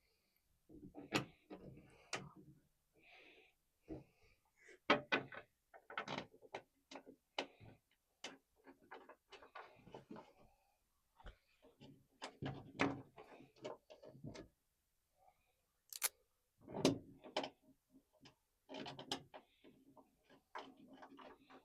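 Irregular clicks, knocks and short rattles of hand tools and parts being handled while reassembling a pickup's tailgate: the license plate and trim going back on.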